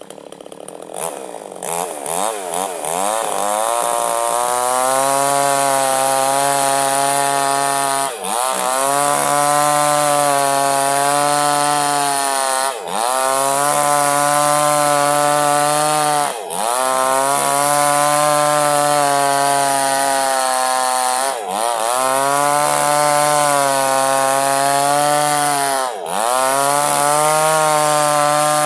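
Small chainsaw cutting lengthwise through a log to split it in two. The engine builds up over the first few seconds, then runs at high revs under load, with a short dip about every four to five seconds.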